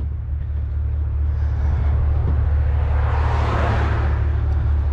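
Vehicle engine and road noise, a steady low drone, with a swell of hiss about three seconds in.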